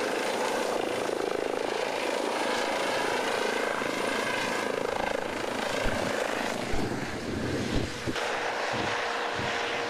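Rescue helicopter lifting off and climbing away close by, its rotor and engines running steadily loud. The sound shifts briefly about eight seconds in, then carries on.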